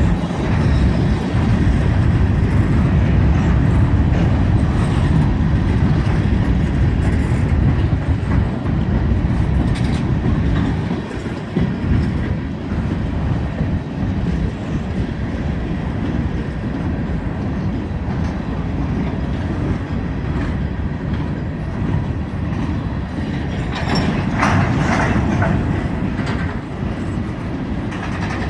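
Railroad cars of a BNSF freight train rolling past with a steady low rumble and wheels clicking over the rail joints. A short burst of higher-pitched wheel squeal comes near the end.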